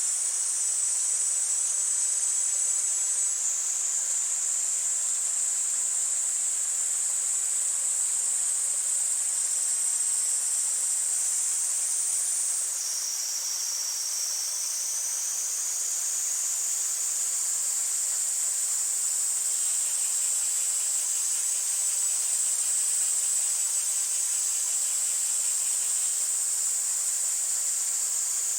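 A chorus of cicadas in a steady, high-pitched drone over the hiss of a flowing stream. A second, lower, pulsing cicada call joins for several seconds past the middle.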